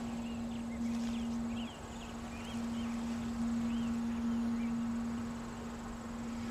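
Birds chirping in the woods, a string of short rising-and-falling calls in the first few seconds, over a steady low drone.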